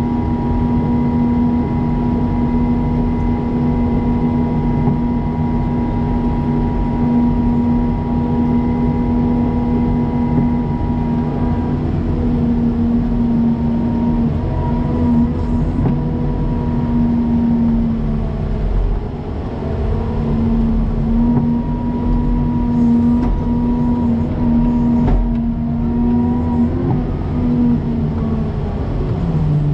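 Snow plow vehicle running under load, a steady engine drone with a whine that shifts in pitch several times as it speeds up and slows.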